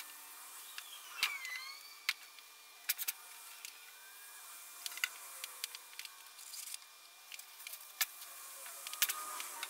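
Faint handling noises as a blackened rectangular steel tube weight is moved about and stood on end on a worktable: scattered sharp clicks and light knocks, with a brief squeak about a second in.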